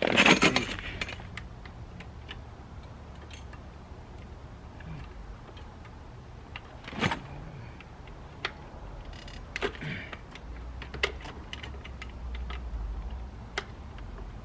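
Metal hand tools, a wrench and sockets, clinking and clicking against metal in scattered, irregular ticks, with a louder rattle at the very start, over a faint low rumble.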